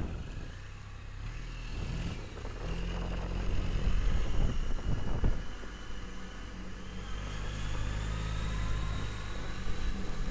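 Suzuki Burgman 650 maxi-scooter's engine running as the scooter rides along, with wind noise on the helmet microphone. A faint whine rises in pitch in the second half as the scooter gathers speed.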